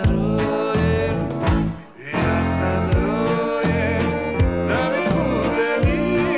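Live band playing a pop song with accordion, keyboard, guitars and drums, and a man singing; the music drops out briefly about two seconds in.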